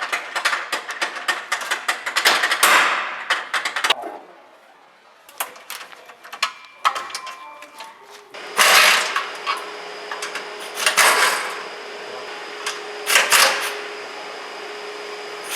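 Workshop tool and mechanism noise: a few seconds of dense rapid clicking and rattling, a quieter pause, then a steady machine hum with a high whine, broken three times by loud hissing bursts.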